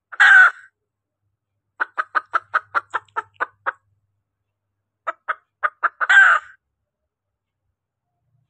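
Female junglefowl hen calling, as used to lure cock birds: a loud squawk, then a quick run of about ten clucks at roughly five a second, a few more clucks, and a second loud squawk about six seconds in.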